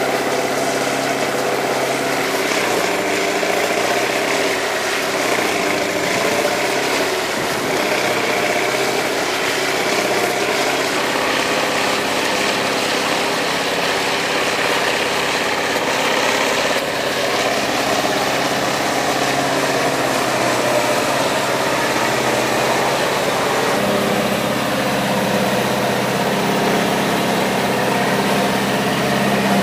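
Large tub grinder running steadily, its diesel engine and spinning tub grinding hay bales. The engine's pitch holds mostly steady, with a change in the low hum near the end.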